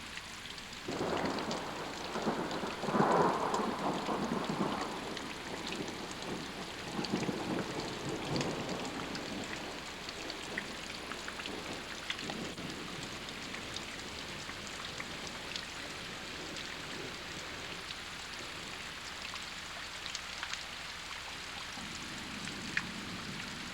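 Steady rain pattering and dripping after a hailstorm, with scattered small drops ticking. A louder rumbling rush swells for a few seconds near the start.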